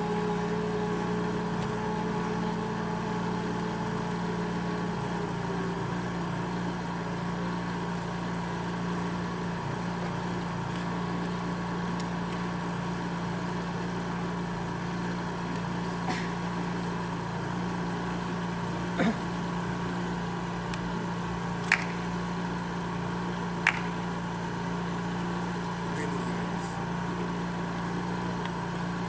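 Steady low mechanical hum, with a higher tone that fades out about five seconds in and a few sharp clicks in the second half.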